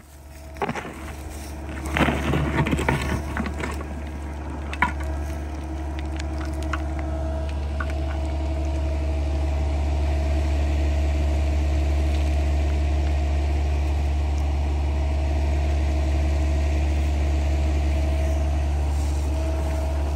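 Sany SY50U mini excavator's diesel engine running steadily under load with a steady whine, its bucket scraping and crunching through dirt and stones about two seconds in, and a sharp knock a little before five seconds.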